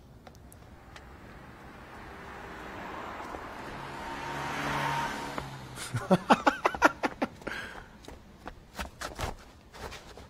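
Anime sound effects: a noisy swell with a low steady hum builds for about five seconds, then from about six seconds in a quick run of sharp whooshing hits follows, with a few scattered clicks after.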